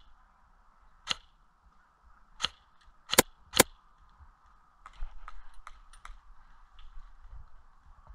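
Airsoft guns firing single shots: sharp, irregularly spaced cracks, the loudest two close together a little past three seconds in, followed by a cluster of fainter clicks.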